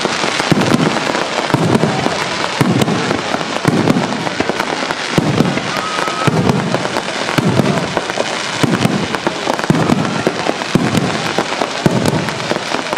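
A fireworks display in full barrage: aerial shells bursting in a steady run of deep booms, about one or two a second, with sharp crackling pops between them.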